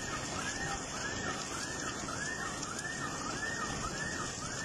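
A car alarm whooping, its tone rising and falling a little under twice a second without a break, over a steady hiss of heavy rain.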